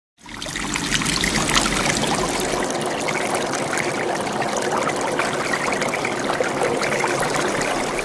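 Water pouring and splashing in a steady rush, fading in quickly at the start and cutting off abruptly at the end.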